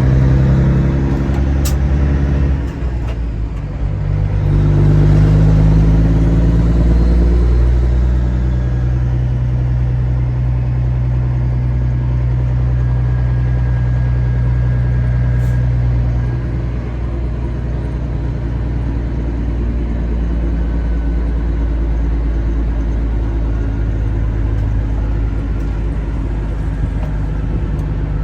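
Kenworth W900 semi truck's diesel engine running. Its note shifts pitch a few times in the first several seconds, then holds steady and eases slightly in level a little past halfway.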